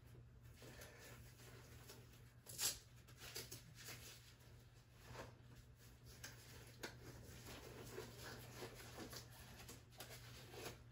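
Near silence: faint rustling and small clicks of nitrile gloves being pulled on and adjusted, with one sharper click about three seconds in, over a steady low room hum.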